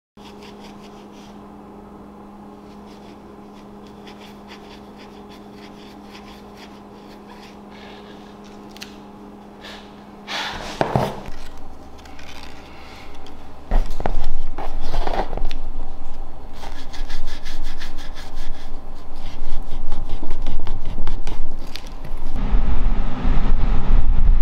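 Steel wool scrubbing over a deer skull coated with cured black metal wax: a dry, irregular rasping rub that comes in about ten seconds in and grows loud. Before that there is only a faint steady hum. Near the end there is a low rumble of handling or wind on the microphone.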